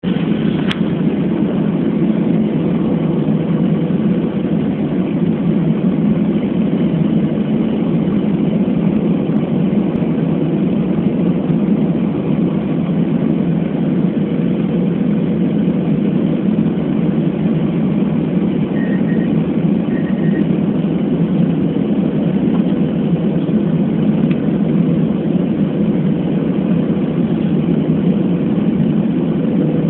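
Aircraft passenger cabin in flight: a low, steady drone of engine and airflow noise with a faint even hum on top.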